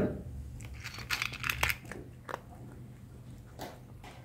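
A cat chewing and crunching dry kibble from a stainless steel bowl: irregular crunches, thinning out after about two seconds.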